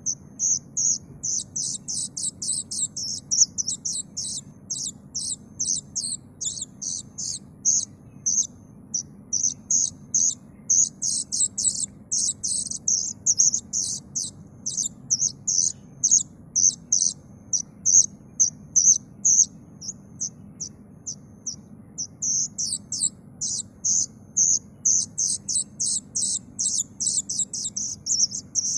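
Young kedasih cuckoo (a Cacomantis cuckoo) calling in a long, steady run of short, sharp, high-pitched begging notes, about two a second, with a faint low hum underneath.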